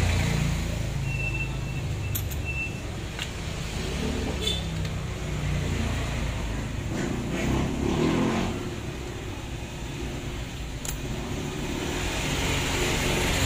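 A steady low background rumble, with a few light metallic clicks as small parts of a rotary hammer's gear housing are handled and fitted by hand.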